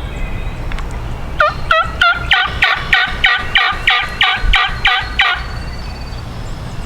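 A wild turkey calling in a series of about a dozen short, evenly spaced notes, about three a second, starting about a second and a half in. Low wind rumble on the microphone.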